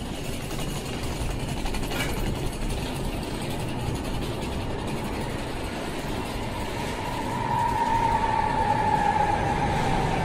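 Sapporo Namboku Line 5000 series rubber-tyred subway train approaching through the tunnel and slowing into the station. A steady rumble grows louder about seven seconds in, joined by a slightly falling whine from the traction motors.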